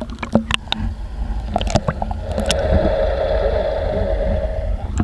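Water slapping and gurgling around a camera dipped at the waterline beside an inflatable boat, with several sharp splashes in the first couple of seconds. The camera then goes under the surface and the sound turns into a steady muffled hum with low rumble until just before the end.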